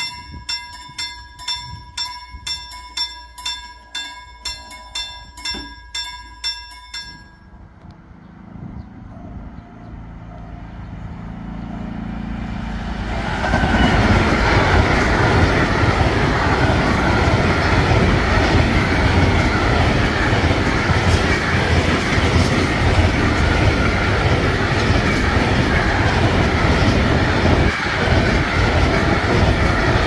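Level-crossing warning bell ringing about twice a second, stopping about seven seconds in. Then a Green Cargo container freight train comes up as a rising rumble and passes close by, with loud, steady wheel-on-rail noise from about thirteen seconds in.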